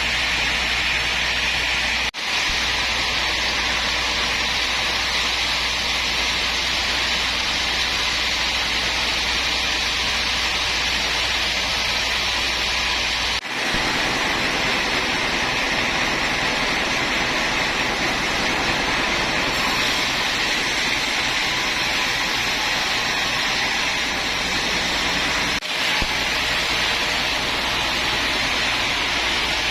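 Woodworking machinery running steadily with a loud, even whirring hiss and a low hum, cutting out for an instant three times.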